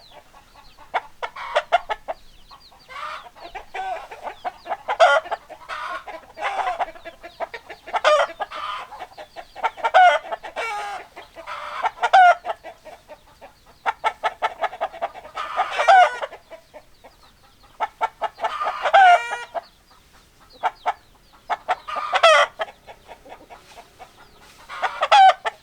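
Chickens clucking continuously, with louder drawn-out calls every two to three seconds.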